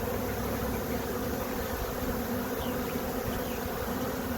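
Honey bee swarm buzzing: a steady, dense hum of many bees, some of them fanning their wings at the edge of the nuc box.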